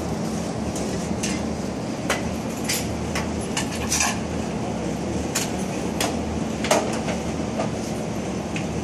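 About a dozen scattered sharp clicks and clacks at irregular intervals, one a little louder near the end, over a steady low hum.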